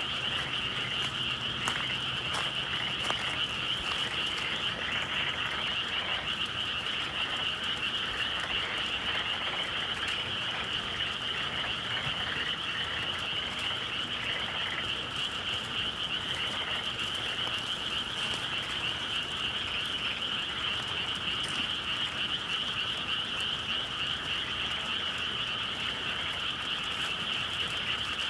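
A dense, steady chorus of many frogs calling together in spring, their calls blending into a continuous high trill.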